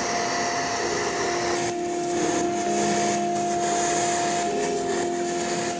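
Surgical smoke-evacuation suction hissing steadily while an electrosurgical pencil is used, with steady electronic tones held over the hiss that change pitch a few times.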